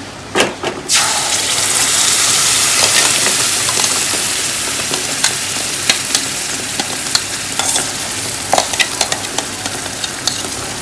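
Spinach paste hitting hot mustard oil and spices in a kadhai with a loud sizzle. The sizzle starts about a second in and slowly dies down, with light clicks of a spoon scraping the paste out of a steel bowl.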